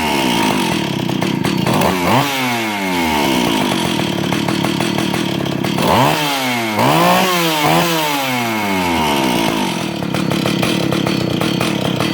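Vintage Stihl 031 two-stroke chainsaw running after an ignition module and carburetor repair, idling between throttle blips. It revs up and falls back once about two seconds in, then revs three times in quick succession from about six to eight seconds in before dropping back to idle.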